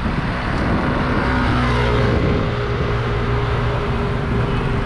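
A car passing close by on the road, its engine hum building about a second and a half in and then holding steady.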